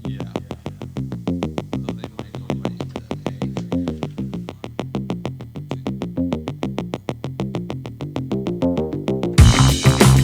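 Electronic background music: a fast, even synthesizer pulse with stepping notes and a beat, which swells and gets much louder about nine seconds in.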